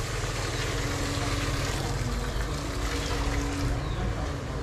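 A small engine or motor running steadily under a rushing noise.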